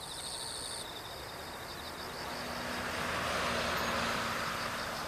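Boeing 777-200ER's twin jet engines spooling up for takeoff, heard from a distance: a broad rushing that swells over the first four seconds, with a low hum joining about two seconds in. Crickets chirp steadily throughout.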